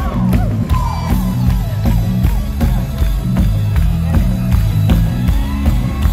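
A live rock band plays loud through an arena sound system, heard from within the crowd, with heavy bass and a steady drum beat about twice a second. Wordless vocal calls rise and fall in the first second.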